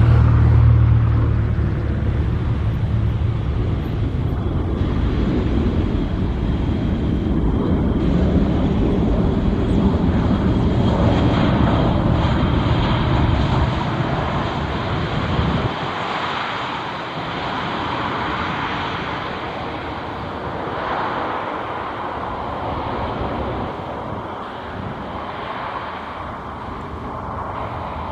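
Jet airliner's engines running loud as it passes, with a deep rumble that drops away about halfway through, leaving a broad roar that slowly fades.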